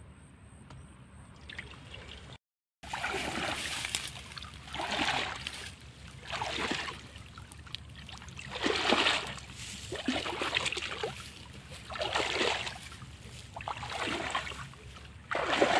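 Creek water splashing and dripping as a fishing net is hauled hand over hand out of shallow water, one splash with each pull, about every one and a half seconds, starting a little over two seconds in.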